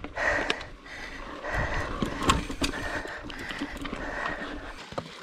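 Mountain bike rolling over rough rock: irregular knocks and rattles over a steady noise.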